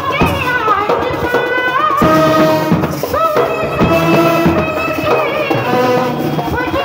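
Live Indian band music: a big bass drum and a hand-held snare drum beating under a sliding melody line.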